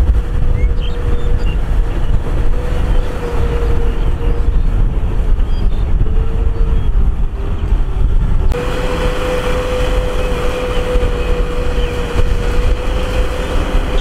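Farm tractor engine running under load as it drags a disc plough through a flooded, muddy paddy: a steady low rumble with a constant whine. The sound changes abruptly about eight and a half seconds in, becoming brighter.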